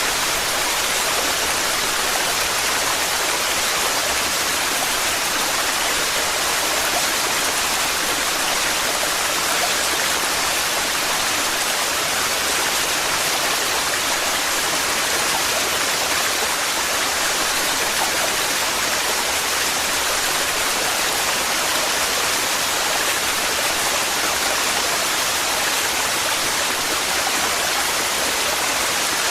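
Waterfall pouring heavily, a steady unbroken rush of water.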